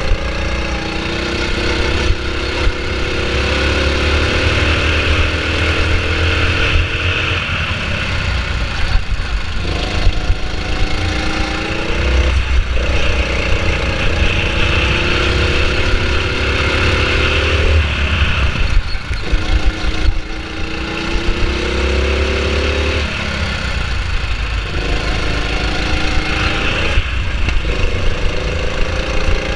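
Go-kart engine heard from the driver's seat, its pitch climbing steadily as it revs up along each straight, then dropping away abruptly several times as the throttle comes off for the corners.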